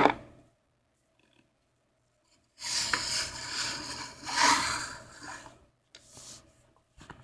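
A sharp knock at the very start, then, a couple of seconds in, about three seconds of rustling and scraping noise.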